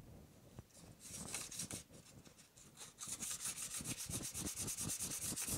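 Fine wet-and-dry sandpaper rubbed by hand along a primed bicycle rim (wet sanding the primer), starting with scattered strokes. About three seconds in it settles into a fast, even back-and-forth of about six strokes a second.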